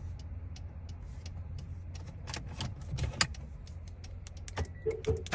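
Scattered light clicks and rattles, typical of car keys and a key programmer being handled, over a steady low hum. A short pulsed electronic beep sounds near the end.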